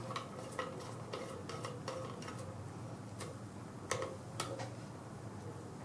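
Faint, irregular light clicks and ticks as an antenna is screwed by hand onto the threaded connector of a metal cell-phone jammer and the unit is handled, with a few sharper clicks about three to four and a half seconds in.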